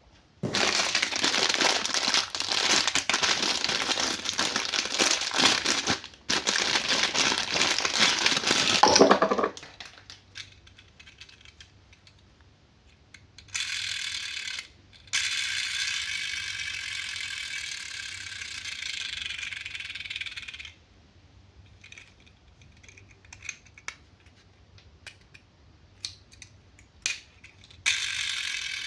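Toy packaging being handled and unpacked. First comes a long stretch of loud crinkling and rattling. Later there is a steadier, higher rasping sound for several seconds, then scattered light clicks of plastic parts.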